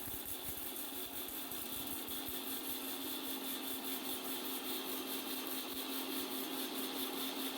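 Electric mixer grinder running steadily, grinding roasted black peppercorns to a fine powder in its jar: a constant motor hum with hiss, unchanging throughout.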